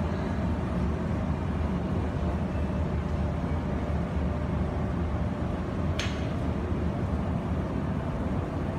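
Steady low-pitched background noise of an indoor hall, with one short sharp click about six seconds in.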